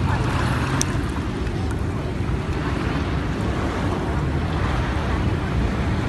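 Steady wind rumble on the microphone over the sea's small waves lapping, with a faint click about a second in.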